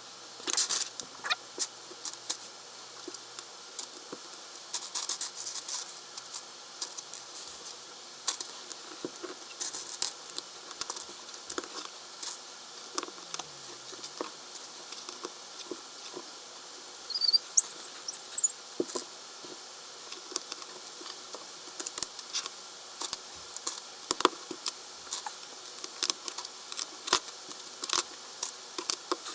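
LEGO plastic bricks clicking and clattering as a Microfighters set is built by hand: many quick irregular clicks and ticks. A brief high squeak a little past halfway.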